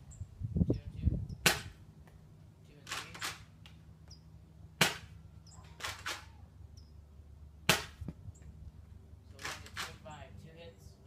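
Nerf Rival spring-powered foam-ball blasters firing: a sharp pop every few seconds, with quieter clicks and clatter from priming and balls landing between the shots.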